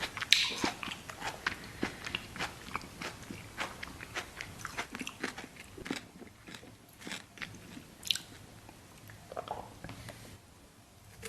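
Close-miked eating sounds: a person biting and chewing food with dense wet, clicky mouth noises. The chewing thins out about halfway through and goes almost quiet near the end.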